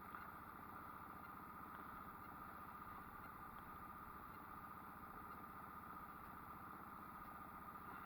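Boat's outboard motor idling steadily in gear at trolling speed while backtrolling, a low, even running with a fast regular firing rhythm.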